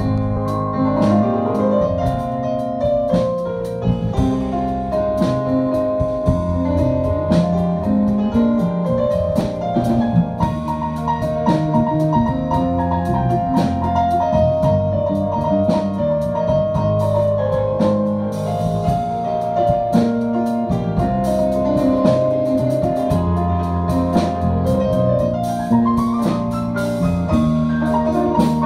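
Live instrumental jazz: an electric keyboard plays the melody and chords over bass and a drum kit with steady cymbal strokes, and a trumpet comes in near the end.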